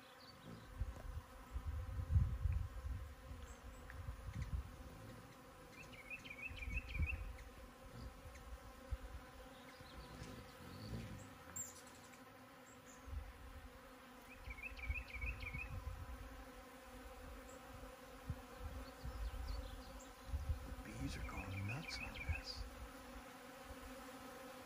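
Bees buzzing steadily around blooming agave flower stalks, with irregular low rumbles coming and going. A bird gives a short trill three times.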